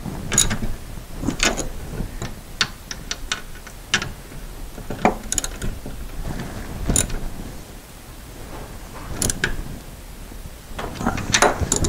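Socket ratchet wrench clicking in short, irregular runs as nuts are tightened onto threaded studs in wood.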